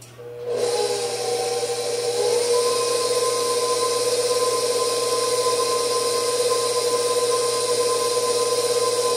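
Bowl-lift stand mixer switched on and beating cocoa powder into cupcake batter. Its motor whine rises in pitch about two seconds in, then runs steadily.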